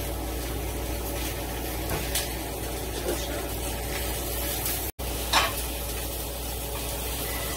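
Thick boneless pork chops sizzling in a hot cast-iron skillet, a steady frying hiss. The sound cuts out for an instant about five seconds in, and a short knock follows just after.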